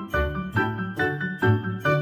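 Background music: quick, bright, bell-like notes over a bass line, several notes a second.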